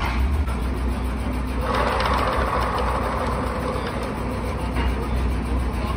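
A machine running with a steady low hum. A rushing noise swells about two seconds in and fades out over the next couple of seconds.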